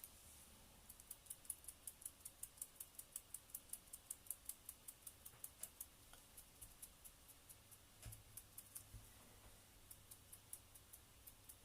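Faint rapid ticking of a finger flicked again and again across the stiff bristles of a paint-loaded brush to spatter a fine mist of thinned acrylic paint, about six flicks a second at first, then slower and sparser after about six seconds.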